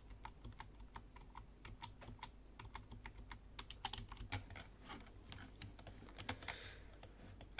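Faint computer keyboard keystrokes, short irregular clicks a few times a second, over a low steady hum.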